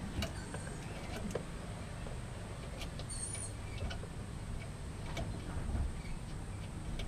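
Faint, scattered light clicks and taps as the metal fitting of a braided brake line is handled and threaded by hand into a brass brake-line T under the car.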